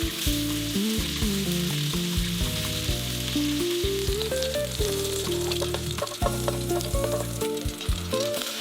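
Food frying and sizzling, a steady hiss dotted with small sharp crackles. Soft instrumental music with a melody and a bass line plays underneath.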